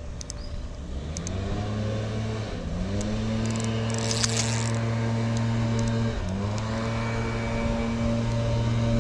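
An engine running with a steady hum that rises in pitch about a second in, dips briefly and climbs back twice, then holds even.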